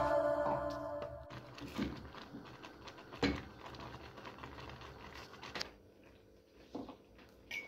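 Background music fades out in the first second, leaving faint kitchen sounds: thick porridge bubbling and popping in a stainless steel saucepan, with a few light knocks of a wooden spoon on the pan, the sharpest about three seconds in.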